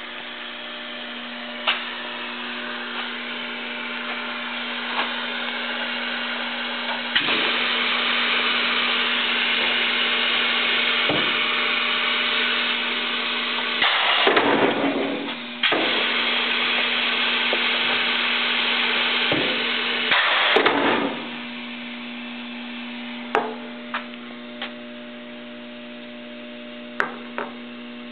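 Pistorius MN300 double miter saw running with a steady motor hum. Twice, about halfway through and again some six seconds later, there is a louder surge of saw noise as the blades cut the frame moulding. Near the end there are a few sharp clicks and knocks over the continuing hum.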